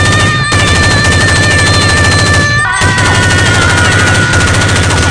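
Rapid automatic gunfire, a dubbed machine-gun sound effect, firing without pause apart from a brief break about two and a half seconds in. A long, steady high tone runs over the shots and shifts to a lower pitch at the break.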